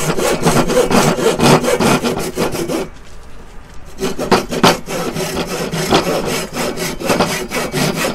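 Hand saw cutting down into a thin wooden board to make a lap-joint notch: quick, short, even strokes of the teeth through the wood. It pauses for about a second about three seconds in, then carries on.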